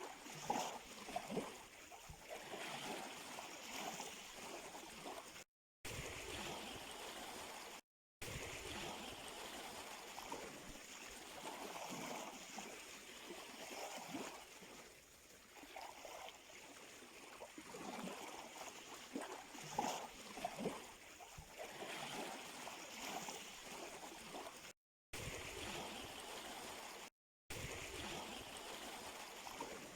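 Sea water lapping and gurgling at the shoreline, small waves splashing in irregular bursts. The sound cuts out completely four times for a fraction of a second.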